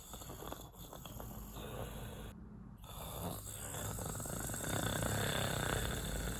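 A person snoring. It cuts out briefly about two and a half seconds in, then comes back louder.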